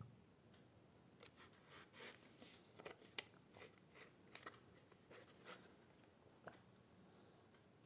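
Faint crinkling and crackling of clear plastic wrap as hands handle cellophane-packed dress-material sets, a run of irregular crackles from about a second in that dies away after about six seconds.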